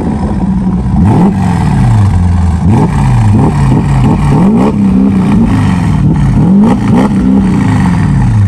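Mercedes-Benz GL500's V8 revved repeatedly while standing still, through an aftermarket exhaust with its vacuum valve open (straight-through loud mode). The pitch rises and falls several times in quick succession.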